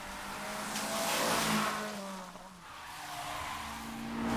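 Racing car engines running at high revs over tyres hissing on a rain-soaked road. The hiss swells twice, about a second in and near the end, and the engine pitch dips and then climbs again.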